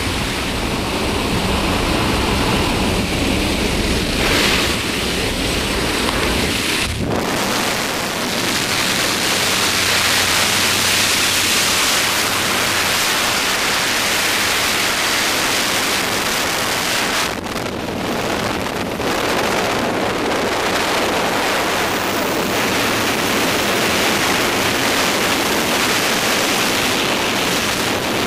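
Loud, steady wind rushing over the camera's microphone, from the airflow at a jump aircraft's open door and then in skydiving freefall. A low rumble underneath stops about seven seconds in.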